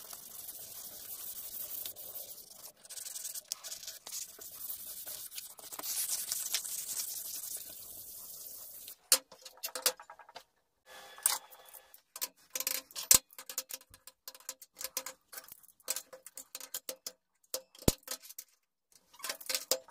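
A hand rubbing across a wooden block with a steady rubbing noise, then, about halfway through, a run of sharp clicks and metallic clinks as small steel parts and locking pliers are handled on a steel workbench.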